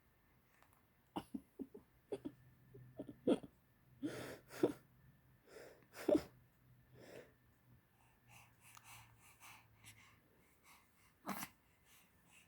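A baby hiccuping: a string of short, sudden hiccups at irregular intervals, with soft breathing sounds between them and one more hiccup near the end.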